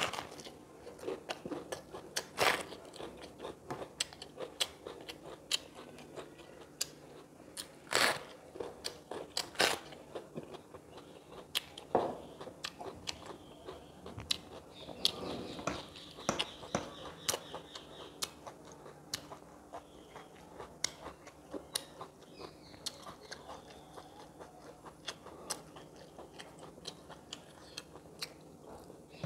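A person eating: chewing and biting, with frequent crisp crunches and a few louder ones spread through.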